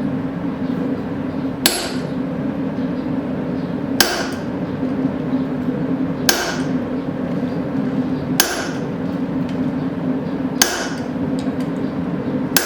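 Hand hammer striking a hot steel horseshoe on the anvil, five or six single blows about two seconds apart, each ringing briefly. A steady hum from the forge runs underneath.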